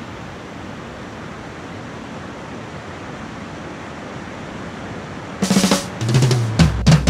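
Steady rushing of whitewater rapids over boulders, an even roar with no rhythm. About five seconds in, a drum kit and music come in over it.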